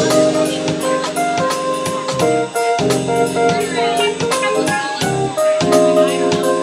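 Live jazz band playing: keyboard chords held over a drum kit keeping a steady beat, with electric guitar.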